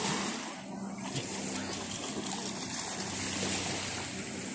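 Small sea waves washing and splashing at the shoreline, with a low steady hum of a distant motorboat engine underneath.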